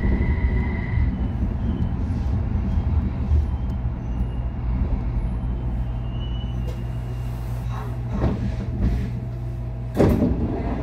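Rubber-tyred Busan Metro Line 4 light-metro train heard from inside, with a steady low rumble and a high electric whine that fades out about a second in as the train slows. Near the end comes a short, loud rush of noise.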